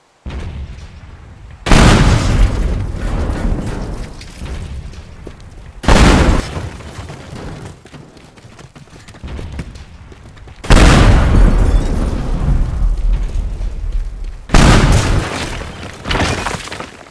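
Four loud booming crashes, each sudden and then fading in a rumbling, crackling tail over a few seconds.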